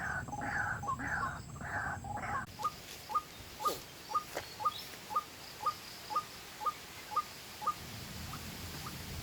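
White-breasted waterhen calls played as a hunting lure from a phone speaker. Harsh croaking calls repeat about twice a second, then about two and a half seconds in the sound switches abruptly to short clipped notes, also about twice a second, which fade out near the end.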